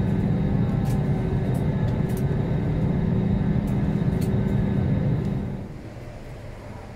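Airliner cabin noise while taxiing: a steady jet-engine rumble with a low hum. About five and a half seconds in it gives way to a much quieter, even hall ambience.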